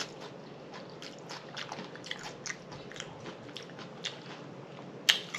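A person chewing crunchy food close to the microphone, with about two to three crisp crunches a second and a sharper, louder one near the end.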